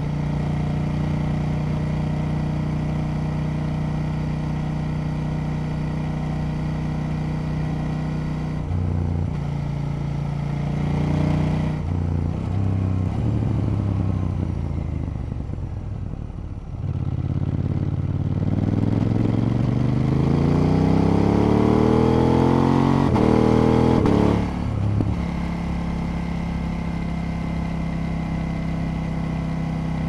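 KTM 890 Duke L's parallel-twin engine running at a steady note. Past the middle its note changes and dips briefly, then the revs climb steadily for about seven seconds and drop back abruptly to the steady note.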